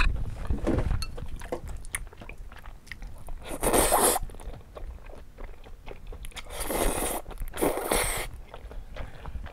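Close-miked slurping of glass noodles: three long slurps, one about three and a half seconds in and two close together near seven and eight seconds, with wet chewing and mouth clicks between them.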